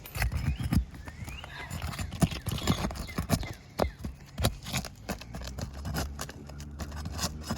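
Metal roof snake tool working under old sealed asphalt shingles: irregular clicks, taps and scrapes as it pries at the tabs, which are stuck down well and hard to lift.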